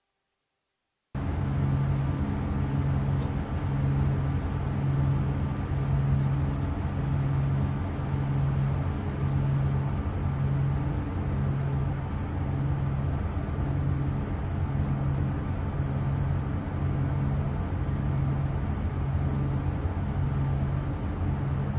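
A ship's engine running with a low drone that pulses about every second and a quarter, under an even hiss. It cuts in abruptly about a second in.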